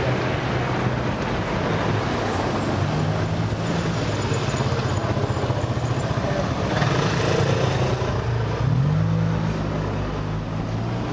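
City street traffic: motor vehicle engines running and passing over a steady rush of urban noise, one engine rising in pitch about eight seconds in.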